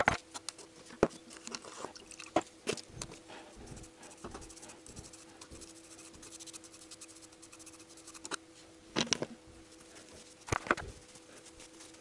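Scattered metal clicks and light knocks from valves being pulled out of an aluminium 8-valve cylinder head and handled, with a few quick clusters of clicks near the end. A faint steady hum runs underneath.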